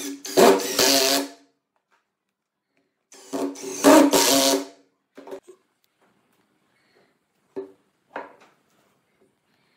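Makita 18V cordless impact driver driving two screws into wood, each run about a second and a half long, the second starting about three seconds in. A few short, light knocks follow.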